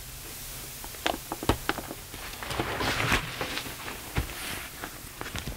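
Handling noise from a suitcase's removable garment folder being taken out of the lid: scattered sharp clicks and knocks with a brief rustle of fabric.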